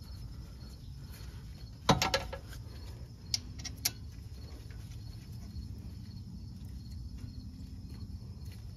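Cast-iron brake caliper knocking down onto its bracket over new pads: one sharp metallic clank about two seconds in with a brief ring, then two light metal clicks a second or so later. A steady low background hum lies under it.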